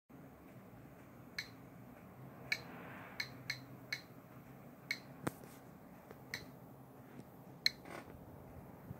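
GQ Geiger counter clicking at irregular, random intervals, roughly once a second, each short high click a detected count of gamma radiation from a uranium-238 metal cube. One duller knock about five seconds in.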